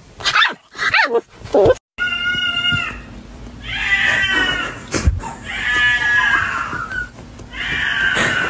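A puppy gives three short barks, set off by its own hiccups. Then, after a cut, a cat makes four long, drawn-out meows, yowling to be let through a closed door.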